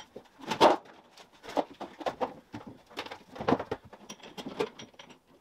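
Scattered light knocks, scrapes and rustles of hand work on the car's engine mount, the loudest about half a second in.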